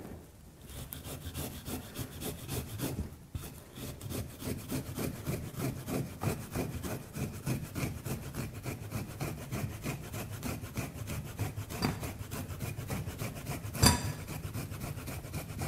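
Fresh peeled ginger root grated by hand on a long metal rasp grater: rapid back-and-forth scraping strokes, with a brief pause about three seconds in. A single sharp knock near the end.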